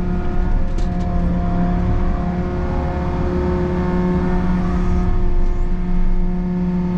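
Takeuchi excavator's diesel engine running steadily at working revs with a constant pitched hum while digging.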